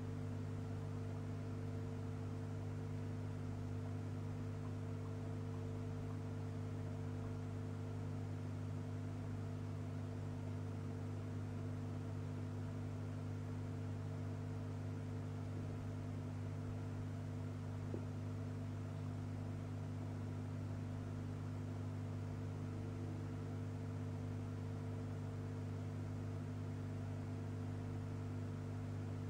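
Steady low electrical hum with a faint hiss, unchanging throughout, with one faint tick about two-thirds of the way through.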